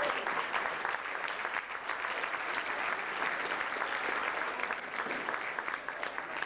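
Audience applauding, many hands clapping densely, thinning out near the end.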